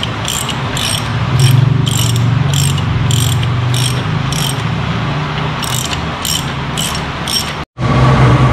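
Hand socket ratchet clicking in short bursts, about two a second, as a frame-slider bolt is driven in, over a steady low hum. Near the end the sound cuts out abruptly for a moment.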